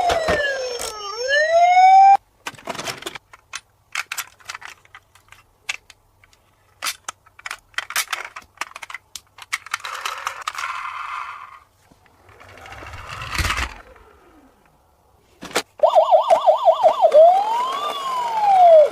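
Toy police car's electronic siren: a falling then rising wail for the first two seconds, then, after a long stretch of scattered clicks and rattles, a fast warbling yelp from about three seconds before the end, with one slower rise and fall inside it.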